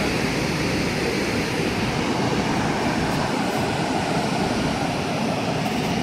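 Steady, even roar of the Awash River waterfall.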